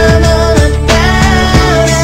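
A pop love song playing, with a singer over a steady beat.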